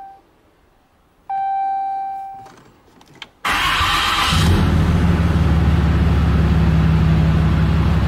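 A dashboard chime dings twice, each tone fading out, then after a few clicks a Cummins diesel engine is cranked by the starter, fires within about a second and settles into a steady idle.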